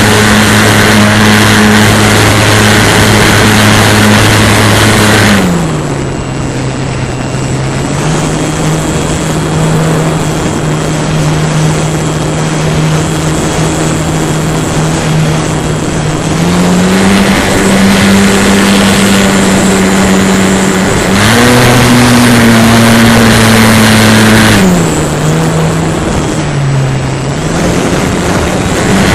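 A model airplane's motor and propeller, heard from on board, running with a steady buzz over a rush of wind. The throttle comes back about five seconds in and the pitch drops. It opens up again in two steps in the second half, eases off once more a few seconds before the end, then rises again at the very end.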